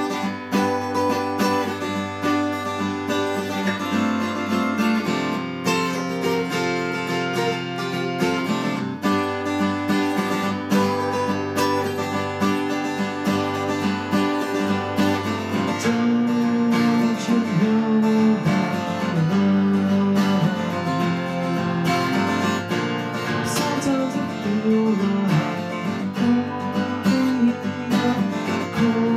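Steel-string acoustic guitar strummed, playing a steady run of chords.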